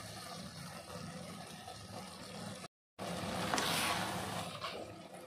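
Noodles in a reduced, thickened curry broth simmering in a metal pot. After a short break in the sound about halfway through, a steel ladle stirs and scrapes through the noodles against the pot, louder, with a couple of sharp clicks.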